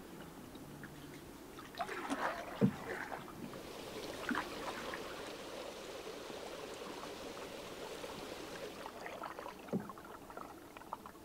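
Water splashing and dripping from a canoe paddle as a canoe is paddled, irregular splashes over a steady wash of water.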